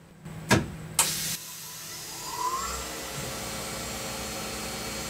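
Compressed air of a Trico mist coolant system hissing steadily, after a couple of sharp clicks at the start, with a short rising whistle about two seconds in. The whistling comes from a hole leaking air in the coolant system's air line.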